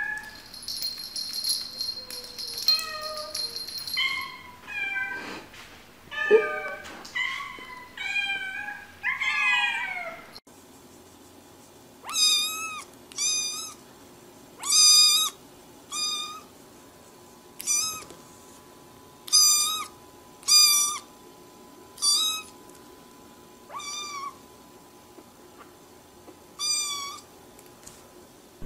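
Domestic cats meowing. In the first part several overlapping, wavering meows follow one another closely; after that a single cat gives a run of about a dozen short, high meows, one every second or two.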